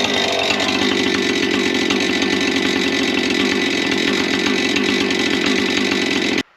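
Gas chainsaw running steadily at high revs, cutting through a wooden post; the sound cuts off suddenly near the end.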